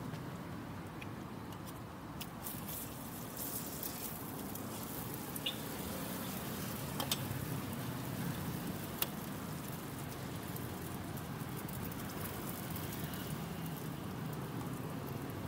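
Batter sizzling in a hot cast-iron waffle iron over a charcoal stove, a steady crackling hiss over a low hum, with a few sharp clicks near the middle.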